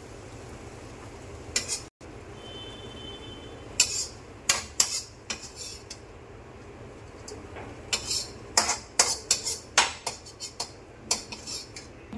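Metal spatula scraping and clinking against a wok and a glass bowl as noodles are scooped out, in scattered knocks at first and then a quick run of clinks in the second half, over a steady low hum.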